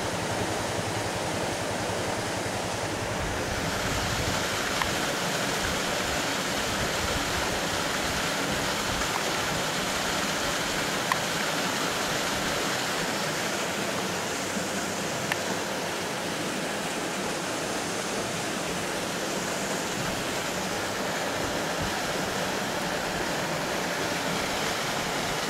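Steady rushing of water pouring through a dam, even and unchanging throughout, with a couple of faint clicks over it.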